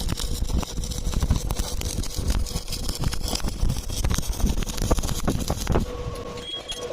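Electric arc welding on steel, the arc crackling and sizzling steadily with a dense stream of sharp pops. About six seconds in the crackle thins and a faint steady tone comes through.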